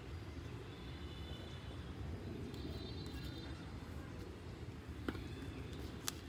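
Steady low outdoor background rumble with faint high chirps, and two sharp clicks about a second apart near the end.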